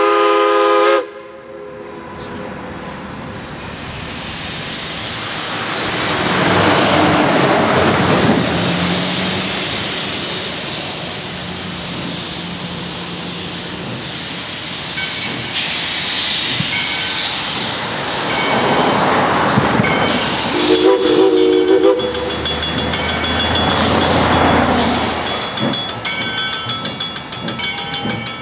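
Doubleheaded Mikado (2-8-2) steam locomotives starting a passenger train: a chime steam whistle blast ends about a second in, then heavy steam exhaust and hissing swell and fade every few seconds as they work away. A second short whistle blast sounds about three-quarters through, and a grade-crossing bell starts ringing steadily, about two strokes a second, near the end.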